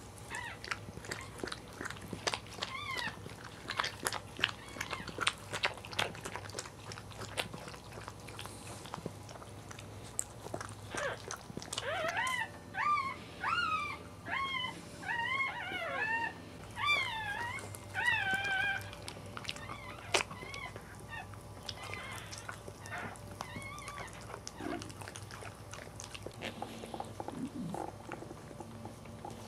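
Cairn Terrier mother licking and chewing at a newborn puppy and its birth sac, making many short wet clicks and slurps. About twelve seconds in, a newborn puppy squeals in a run of about ten short, high cries that rise and fall, over some seven seconds.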